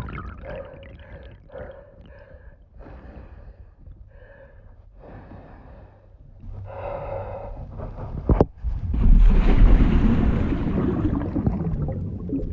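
A woman's acted underwater drowning sounds: a string of short, muffled closed-mouth whimpers and 'mmph's, then a sharp click about eight seconds in followed by a loud rush of bubbling and gurgling that lasts a few seconds.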